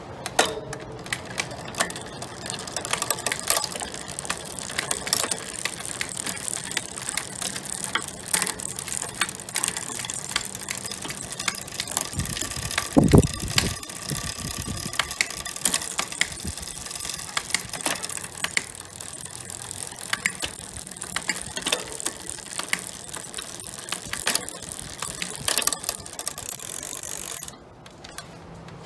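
Bicycle drivetrain running: chain turning over the rear derailleur and cassette with many sharp clicks and ticks. A loud low thump about thirteen seconds in, and the running stops abruptly near the end.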